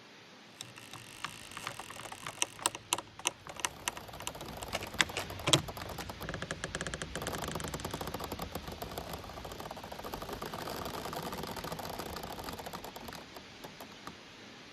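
Giant bamboo stems creaking and rubbing against each other as they sway in the wind: a run of sharp clicks and cracks, the loudest about five seconds in, gives way to a dense, rapid creaking rattle that fades near the end.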